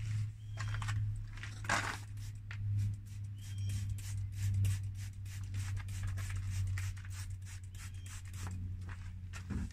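Fine 4,000-grit sandpaper rubbed by hand over an oxidized plastic headlight lens, in quick, irregular scraping strokes, as a step in restoring the lens. A steady low hum runs underneath.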